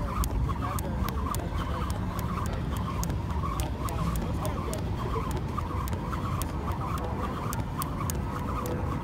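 Thin jump rope slapping the pavement on each turn, a quick, even rhythm of sharp clicks over a steady low rumble.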